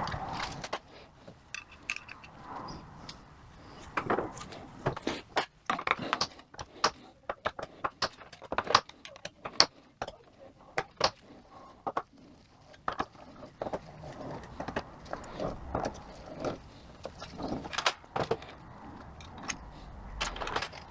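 Small steel parts of a 42RE automatic transmission's valve body (spool valves, springs, plugs) clicking and clinking as they are pulled out and handled, in irregular sharp taps.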